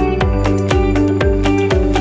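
Background music with a steady beat of about four beats a second.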